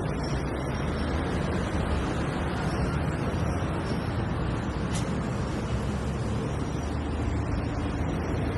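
Busy road traffic: a steady, dense rumble of passing cars and buses, with a single short click about five seconds in.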